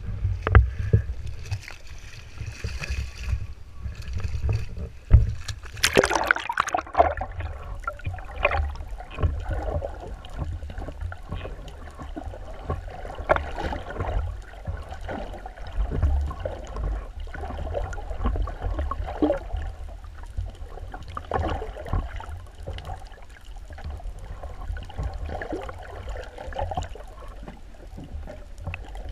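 Camera plunging into seawater with a splash about six seconds in, then muffled underwater sound: a steady low rumble with bubbling and gurgling.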